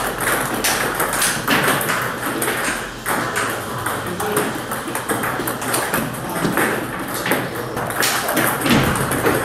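Table tennis balls being struck and bouncing: many sharp, irregular clicks of balls off rubber paddles and table tops from several tables at once.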